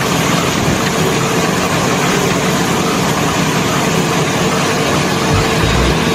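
A truck engine idling steadily, an even running noise that does not change.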